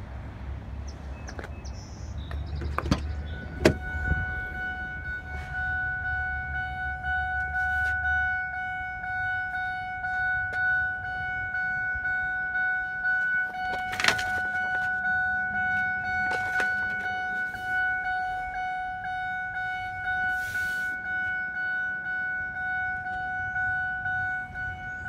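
A truck cab's electronic warning chime, a steady pitched tone that starts just after a sharp latch click about four seconds in, as the driver's door is opened, and keeps sounding with the door open. A couple of knocks from handling the door come partway through.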